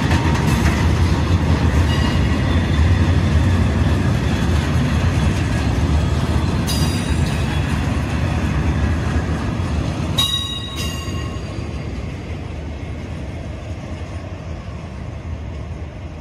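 A freight train of bogie tank wagons rolls past with a steady low rumble of wheels on rail. Brief high-pitched wheel squeals come about 7 and 10 seconds in, and the sound eases off over the last few seconds as the end of the train passes.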